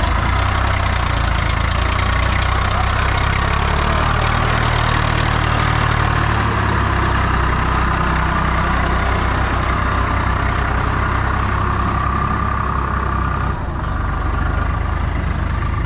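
Swaraj tractor's diesel engine running steadily at low revs.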